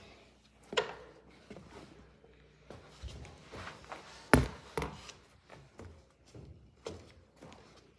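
Irregular knocks and thumps, the loudest about four seconds in, from someone stepping and moving about on the boat.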